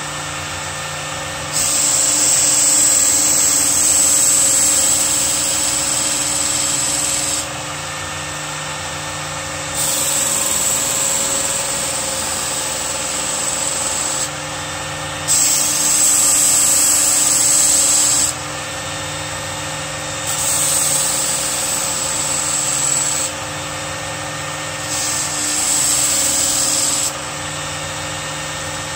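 Work Sharp Ken Onion Edition belt sharpener's electric motor running steadily, with a large fixed-blade knife, an ESEE-5, drawn across the abrasive belt five times. Each pass is a louder grinding hiss lasting a few seconds, as the edge is sharpened and the tip reground.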